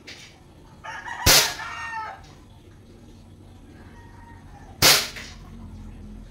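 Two sharp shots from a 9mm-style airsoft pistol, about three and a half seconds apart, the first about a second in. A rooster crows around the first shot.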